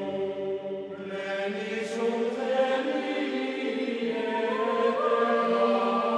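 Slow choral chant: voices singing long held notes that step from pitch to pitch.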